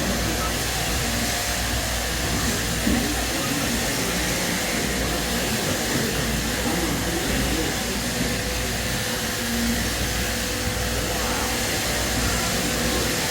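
Electric sheep-shearing handpieces and their shearing-plant drives running, a steady mechanical hum and hiss, with faint voices in the background.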